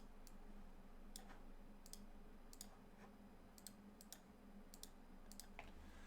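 Faint, sharp clicks, about a dozen at irregular intervals, over a low steady hum.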